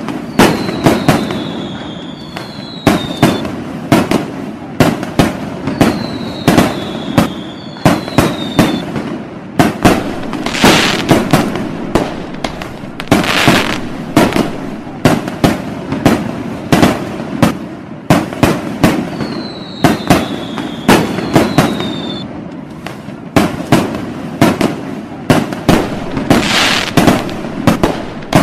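Fireworks display: a rapid, continuous barrage of aerial shell launches and sharp bursts. Pairs of short descending whistles come about a second in, about six seconds in and about twenty seconds in, and a few longer hissing stretches rise between the bangs.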